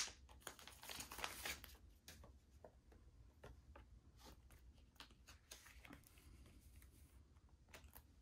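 Faint crinkling and rustling of a clear plastic binder sleeve as a holographic postcard is handled and slid into its pocket. It is densest in the first couple of seconds, then becomes scattered light taps and rustles.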